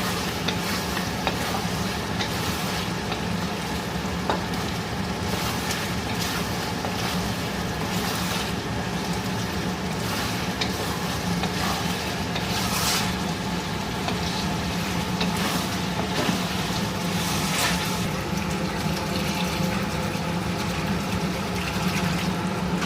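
Chicken gravy sizzling in a pan while it is stirred, with occasional scrapes of the spoon, over a steady low hum.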